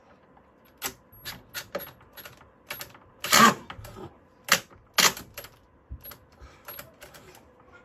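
Irregular sharp clicks and knocks of metal parts being handled while the securing screw is fitted into the top of a combi boiler's casing, the loudest knocks a little past the middle.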